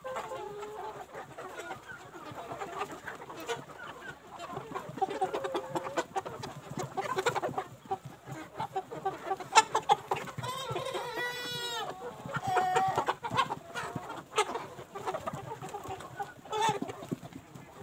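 A flock of desi chickens, hens and roosters, clucking all around, with many short overlapping calls and one louder, drawn-out call about ten seconds in.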